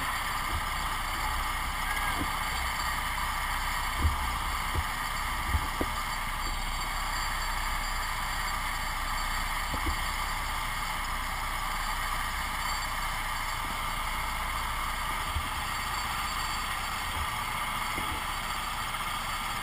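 Go-kart engines running at low speed, a steady drone with a few light knocks in the first half.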